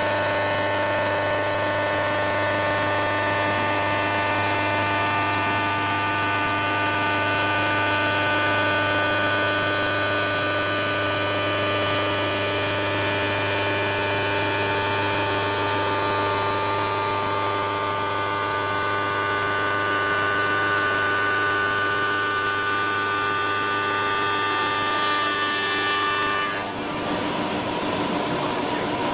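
CNC stone router spindle running with a steady whine made of many fixed tones over a low hum. About 27 seconds in, those tones cut off and a different, thinner whine takes over.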